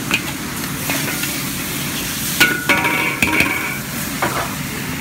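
Pork and sauce sizzling in a hot pan as they are stirred together, with a metal utensil scraping and clinking against the pan. A short ringing scrape about two and a half seconds in is the loudest part.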